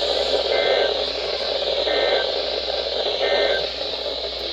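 NOAA Weather Radio broadcast over steady static hiss, carrying three short two-tone EAS/SAME data bursts about a second apart: the end-of-message code that closes a severe thunderstorm warning.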